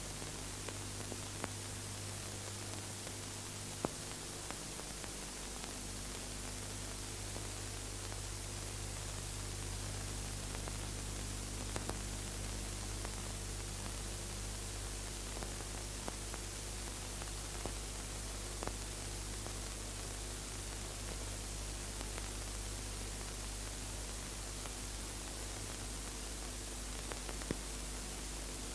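Steady hiss with a low electrical hum and a few faint, scattered clicks: the background noise of an old, worn film soundtrack with no dialogue or music playing.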